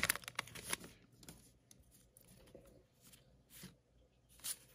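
Foil wrapper of a 2020 Topps Gypsy Queen baseball card pack crinkling as the cards are drawn out, then soft slides and flicks of the cards being thumbed through, with a couple of short swishes near the end.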